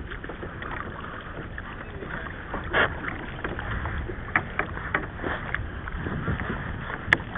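Wind and water lapping around a sea kayak, with a few short, sharp knocks and clicks scattered through.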